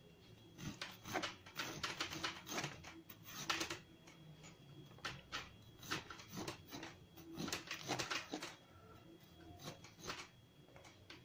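A spoon scraping seeds and pulp out of a halved squash, in a series of short scraping strokes with a brief lull partway through.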